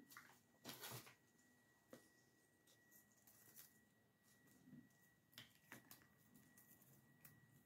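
Near silence, with a few faint short rustles and soft clicks and a thin, steady high tone under them.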